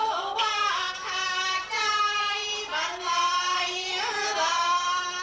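A woman singing in Thai classical style, with long held, wavering high notes and short breaks between phrases.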